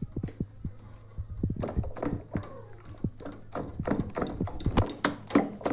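An irregular run of sharp taps and knocks, coming quicker and brighter from about one and a half seconds in, over a low steady hum.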